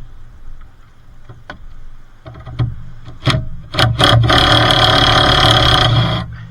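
Impact wrench tightening a nut: a few short blips, then about two seconds of continuous hammering that cuts off abruptly.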